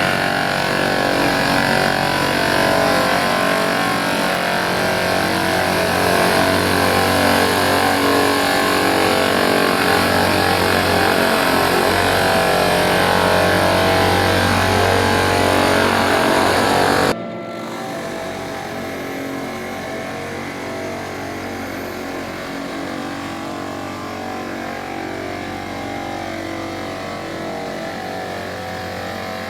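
Riding floor sander running steadily on a hardwood gym floor, a loud, even machine drone with a low hum. About 17 seconds in, it cuts abruptly to a quieter, steady machine sound.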